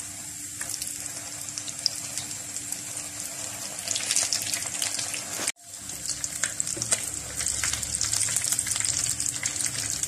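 Breaded chicken and potato cutlets sizzling and crackling in hot oil in a frying pan while they are turned over, with dense fine pops that grow busier about four seconds in. The sound cuts out for an instant just past halfway.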